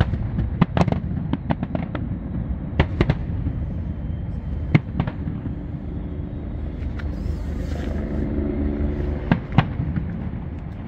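Fireworks going off: many sharp bangs and cracks, thick in the first three seconds and then more scattered, over a continuous low rumble of distant explosions.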